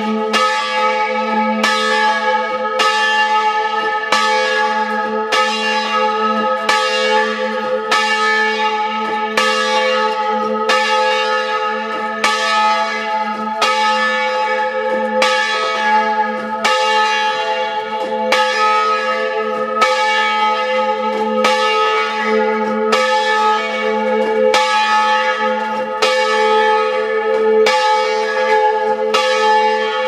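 Hand-rung church bells swinging in a wooden bell frame, heard close up in the belfry: clapper strikes about once a second over a steady, ringing hum of the bells' tones.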